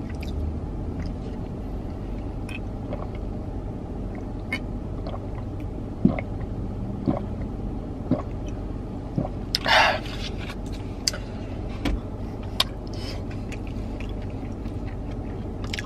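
Drinking from a plastic water bottle inside a car, over a steady low hum: scattered clicks and crinkles from the bottle, and one brief louder rustle about ten seconds in.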